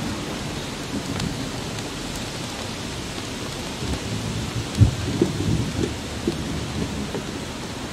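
Wind buffeting an outdoor microphone: a low, uneven rumble with gusts, the strongest about five seconds in.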